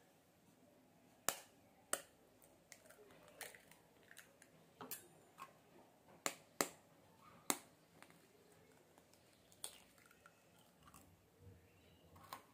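Two eggs being cracked open into a bowl of grated potato: a series of sharp taps and cracks of eggshell, with fainter small clicks between them.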